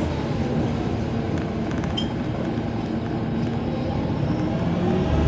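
Cabin noise inside a MAZ 203.065 low-floor city bus: a steady engine and rolling rumble with a few faint clicks and rattles.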